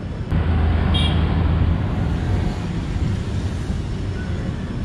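Udyan Express passenger coach running at speed, heard from its open doorway: a steady low rumble of wheels on the rails with rushing air. A short high-pitched tone sounds about a second in.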